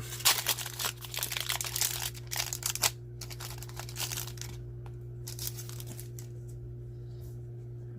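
Plastic wrapper of a 2023 Bowman baseball card pack crinkling as it is torn open and handled: dense crackling for about three seconds, then a few scattered crinkles. A steady low hum lies underneath.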